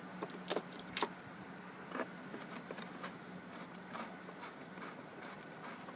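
Faint scattered clicks and taps of hands handling parts on a push-mower engine, a few light knocks over several seconds, over a steady low hum.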